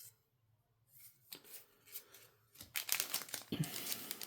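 Foil booster-pack wrapper crinkling and tearing as it is handled, starting about a second in and growing louder and denser in the second half.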